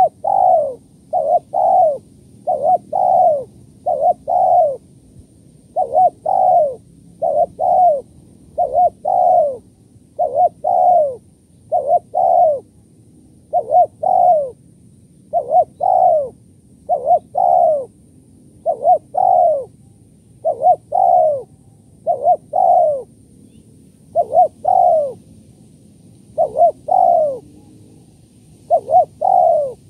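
Spotted dove cooing: short, falling coo notes, mostly in pairs, repeated about every one and a half to two seconds without a break.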